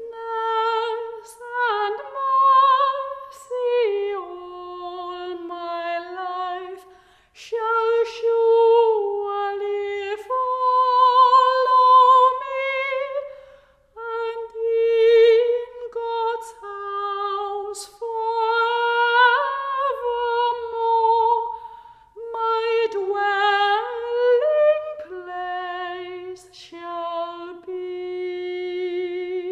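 A woman singing solo without accompaniment, in a high voice with vibrato, in long held phrases with short breaths between them.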